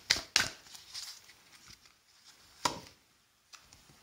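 Hand-held oracle card deck being shuffled and handled: a few sharp card snaps and taps, loudest in the first half second, with another near the three-second mark and a soft rustle of cards between.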